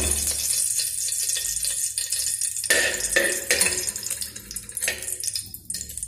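Desi ghee sizzling in a hot aluminium pressure cooker, a steady hiss, with a steel spoon scraping and tapping against the pot a few times in the middle.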